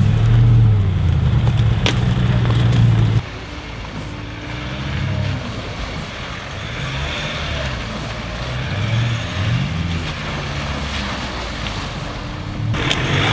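Nissan Y62 Patrol's V8 engine running loud and steady as it drives along a dirt track. About three seconds in, it gives way abruptly to another four-wheel drive's engine revving up and down repeatedly as it works through muddy ruts.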